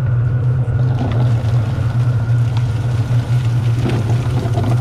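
Chopped potatoes sliding out of a plastic cooler and splashing into a pot of hot stew liquid, over a steady low hum.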